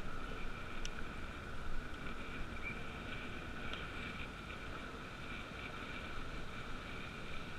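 Riding noise of a bicycle rolling along a paved bike lane: wind rumble on a helmet-mounted microphone and tyre noise, with a steady high whine over it.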